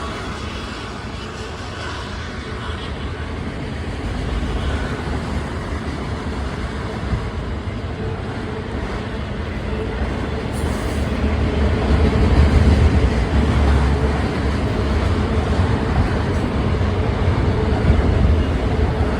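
Freight train of autorack cars rolling past: a steady rumble and clatter of wheels on the rails, growing heavier and louder in the second half.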